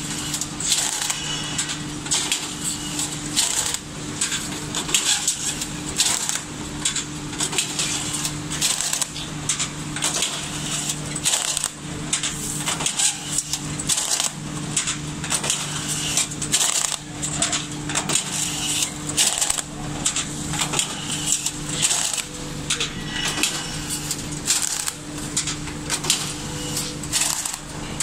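Signode semi-automatic strapping machine running with a steady hum, overlaid by rapid, irregular clacks and snaps as cartons are strapped one after another.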